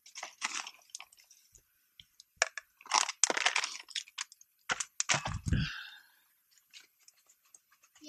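A paper hot chocolate packet crinkling and tearing as it is opened and emptied into a cup, in irregular crackly bursts with scattered clicks. A low thump comes about five seconds in.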